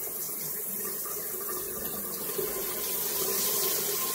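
Water spraying steadily from the body-spray jets of an Ello and Allo shower panel.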